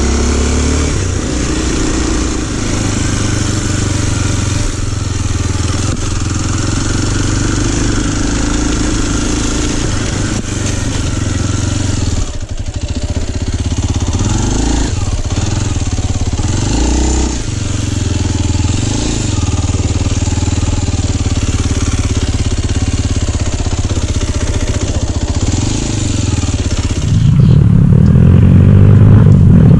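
Kawasaki KLX230's single-cylinder engine running while the bike is ridden, with the revs rising and falling a few times midway. Near the end the engine gets louder and its note climbs.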